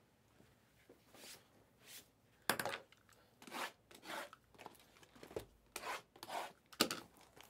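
Utility knife slicing and tearing the plastic shrink wrap on a trading-card box: a string of short scraping, tearing strokes, the sharpest about two and a half seconds in and near the end.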